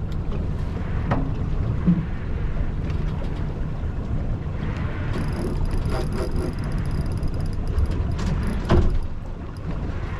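Honda 150 outboard motor running steadily at low speed as a low, even hum, with wind and water noise and a few light knocks. A thin, steady high whine comes in about five seconds in.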